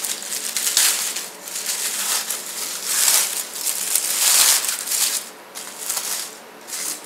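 Crumpled aluminium foil crinkling and rustling in irregular bursts as hands peel and pull it apart off a whole foil-wrapped grilled sea bass. The bursts are loudest about three and four seconds in and quieten near the end.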